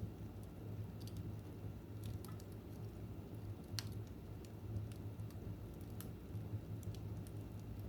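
Wood fire crackling, with irregular sharp pops and snaps over a low steady rumble; the loudest pop comes about four seconds in.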